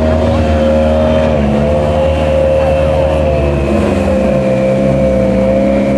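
Vehicle engines running steadily at low revs as cars and a motorcycle move slowly through a crowd, the pitch shifting slightly about a second and a half in and again near four seconds.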